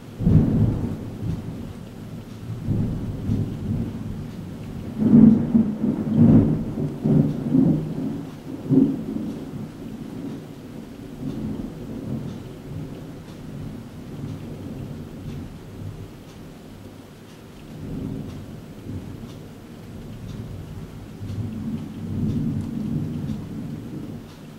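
Thunder rumbling in a rolling series over steady rain. A clap sets in suddenly at the start, the loudest rolls come about five to nine seconds in, and another rumble swells near the end.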